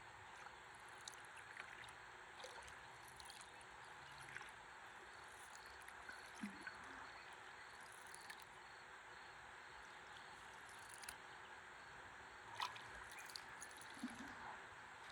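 Faint, steady river water lapping and gurgling around a stand-up paddleboard drifting on the current, with a scattering of small drips and splashes, the clearest a little before the end.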